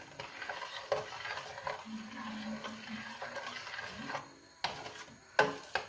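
Stirring a thick cooking cheese mass in a large stainless-steel pot, a scraping sound with a couple of sharp knocks against the pot near the end.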